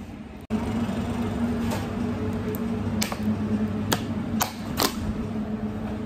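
Steady machine hum, like kitchen equipment running, starting after a cut about half a second in, with a handful of sharp clicks and knocks spread through it.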